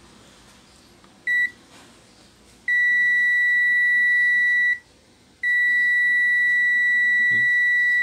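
Multimeter continuity buzzer beeping as the test probes touch parts on a logic board: a short beep about a second in, then two long, steady, high beeps of two seconds or more each. The unbroken tone means continuity across the part, a sign that it is shorted.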